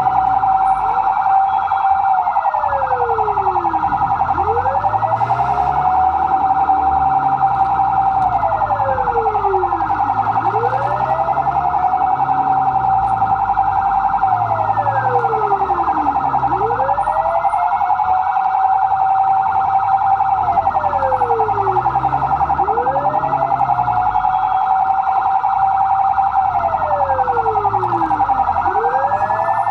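Fire truck siren wailing, with a quick rise, a brief hold and a long fall that repeat about every six seconds. The wail runs over a second steady high siren tone.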